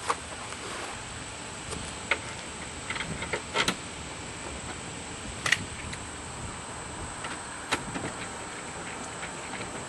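A handful of short separate clicks and taps of tools and screws being handled while the door latch screws are started back into place, over a steady hiss.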